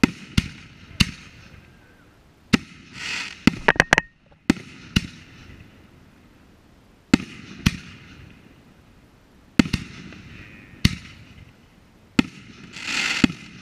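Aerial firework shells bursting overhead: more than a dozen sharp bangs, some coming in quick clusters, with a short rushing hiss twice between them.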